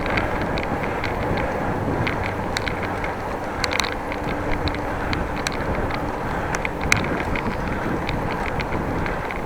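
Steady wind and road noise from riding a bicycle, with scattered light clicks and rattles.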